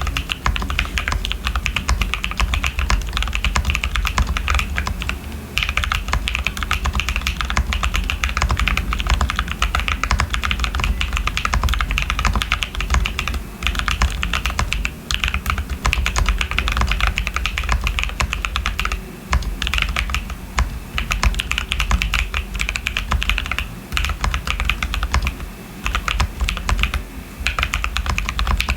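Typing on a custom 65% mechanical keyboard with lubed tactile switches in a PC plate with plate foam and a PE sheet: a fast, steady run of keystrokes, broken by a few short pauses.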